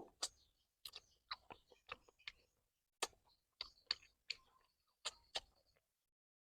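Close-miked mouth sounds of a person eating: an irregular string of short, sharp chewing clicks and lip smacks, about two a second, with dead quiet between them.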